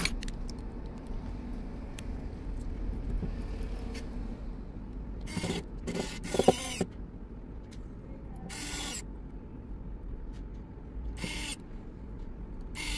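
Electric precision screwdriver whirring in short bursts, about five times, as it drives tiny screws into a smartphone's midframe, with a sharp tick about six and a half seconds in.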